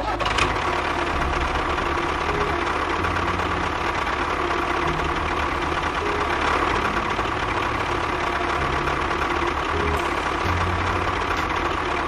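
An engine running steadily at idle, the kind of sound laid on a toy mini tractor.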